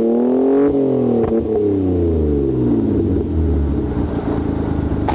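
Car engine revving up briefly, then its pitch falls away over a couple of seconds as it comes off the throttle or passes, settling into a low steady rumble.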